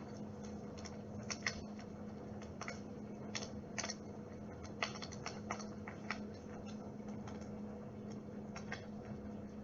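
Dimplex water-mist flame-effect fireplace running: a steady low electrical hum under irregular sharp clicks and crackles, a couple per second at most.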